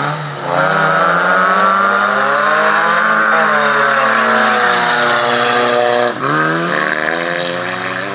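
Wreck-race cars' engines revving hard as they race past. The engine note slides up and down, drops sharply about six seconds in, then climbs again.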